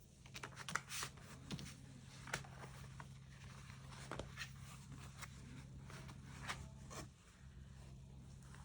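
Packaging being handled during an unboxing: irregular rustles, scrapes and small sharp clicks over a steady low hum, then the handling stops about seven seconds in.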